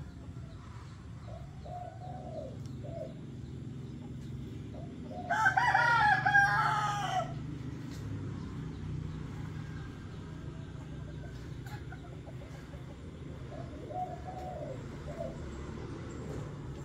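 A rooster crows once, a single call of about two seconds starting a little after five seconds in. Short, faint bird calls come now and then before and after it, over a steady low hum.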